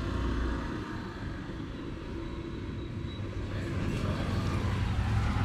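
Bajaj Pulsar 220F's single-cylinder engine running, a steady low rumble under a broad hiss that grows slowly louder.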